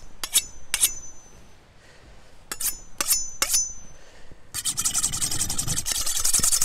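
A steel knife being sharpened against a second metal blade: five quick scraping strokes that ring, two near the start and three about halfway through. From about two-thirds of the way in, a fast continuous rasping rub takes over.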